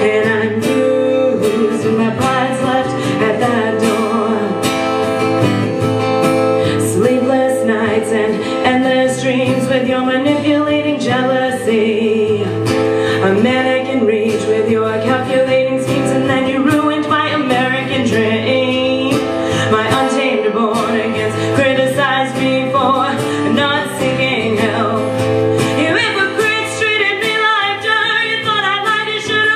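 A song: a woman singing with acoustic guitar accompaniment, the voice carrying long, bending melodic lines throughout.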